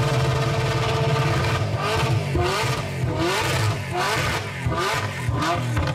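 Supercharged Holden Commodore burnout car doing a burnout, its rear tyres spinning in smoke. The engine is held at high revs at first, then from about two seconds in is blipped up and down in quick repeated revs.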